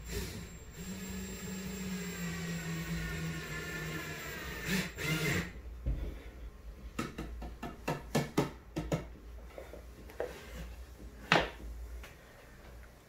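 A small power tool's electric motor runs steadily for about four seconds, its pitch sagging slightly as it goes, and stops. Then comes a quick run of clicks and knocks, with one sharper, louder knock near the end.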